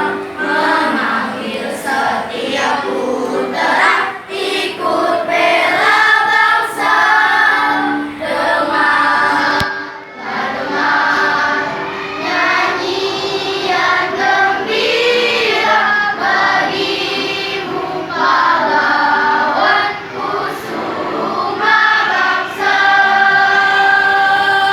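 A fifth-grade school children's choir singing a song, phrase by phrase with short breaks, ending on a long held note near the end.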